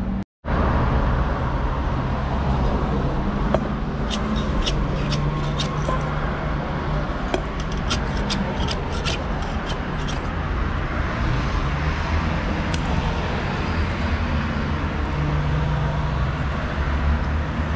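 Steady outdoor street ambience with a low traffic rumble. A run of light, sharp clicks comes through the middle.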